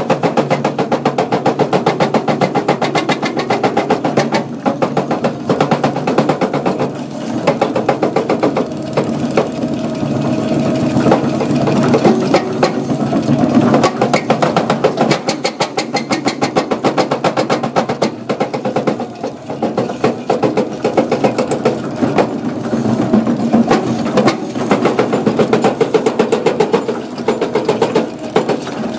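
JCB jaw crusher bucket running on an excavator, its jaw working through concrete rubble with a fast, continuous rhythmic clatter over the running excavator engine.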